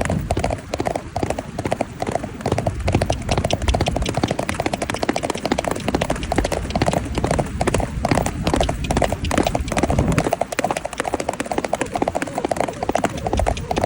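Horse's hooves clip-clopping in a rapid, continuous run of hoofbeats, with a low rumble underneath that drops away about ten seconds in.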